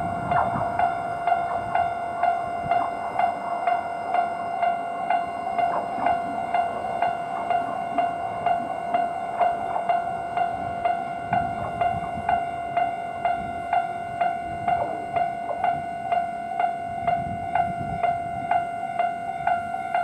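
Japanese railway level-crossing warning bell of the Toyama Chiho Railway type, an electronic ding struck over and over at a steady, even rate of a little under two strokes a second, signalling that the crossing is closed for an approaching train. A low rumble swells in the background around the middle and again near the end.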